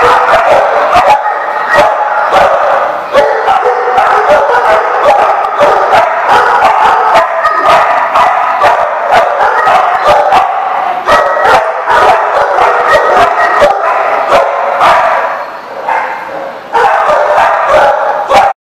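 Dogs barking almost without pause, several at once. The barking eases off briefly about fifteen seconds in, then picks up again and cuts off suddenly just before the end.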